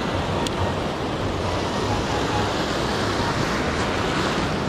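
Surf washing over a shallow rocky reef: a steady rushing noise, with wind buffeting the microphone.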